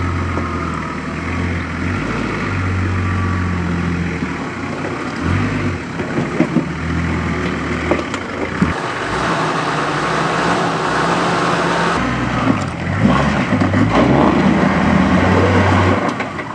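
A four-wheel-drive's engine working at low revs as it crawls up over rocks, its note rising and falling with the throttle, with occasional knocks and scrapes of tyres and underbody on rock.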